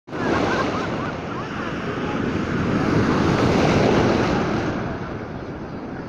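Sea waves breaking and foamy surf washing through the shallows. The wash swells to its loudest about three to four seconds in, then eases off.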